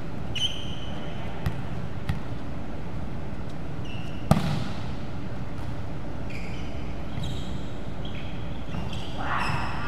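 A volleyball struck hard by an open hand on a serve about four seconds in: one sharp smack that echoes through a large hall. Short high squeaks of shoes on the wooden court and a few faint taps come and go around it.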